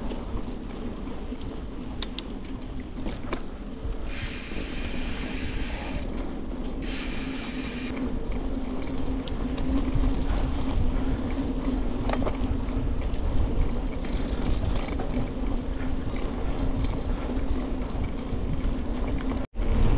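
Heavy bicycle being ridden: a steady rolling rumble and hum from the tyres, with scattered clicks and rattles from the bike. Two short hissing stretches come a few seconds in.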